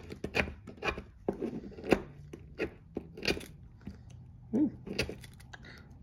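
Awl of a Swiss Army knife scraped repeatedly down a small ferrocerium rod, eight or so quick, irregular scrapes, each throwing sparks onto fibrous tinder that has not yet caught.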